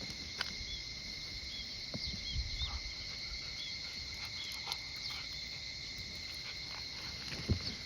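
Insects, likely crickets, sing as a steady chorus of two held high tones. Short, high, hooked chirps repeat through the first few seconds, and a few soft footsteps land near the start and near the end.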